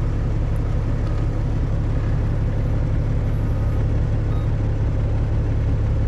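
Diesel truck engine idling with a steady low rumble.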